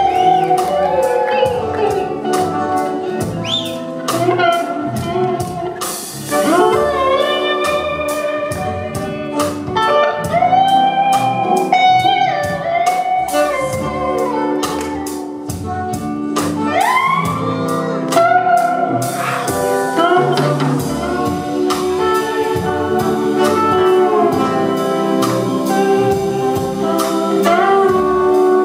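Live rock band playing an instrumental passage: a lead electric slide guitar plays a long solo of gliding, bending notes over drums, rhythm guitar and the rest of the band.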